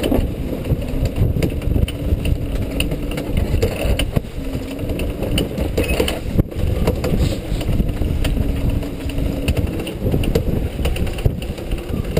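Strong wind buffeting the microphone aboard a sailboat: a loud, gusting rumble with uneven jolts, over a faint wavering hum.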